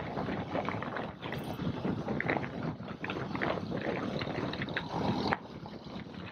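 Wind buffeting a motorcycle-mounted camera microphone while a Yamaha motorcycle rides along in traffic, its engine running under the rushing noise. The rushing eases about five seconds in.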